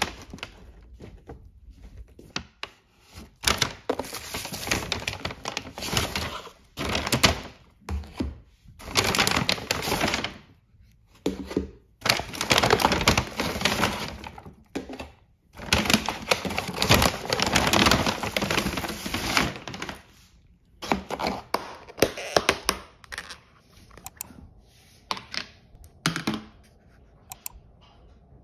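Kraft paper takeaway bag rustling and crinkling in irregular bursts as food is lifted out, then plastic takeout container lids clicking and cracking open in a run of sharp clicks near the end.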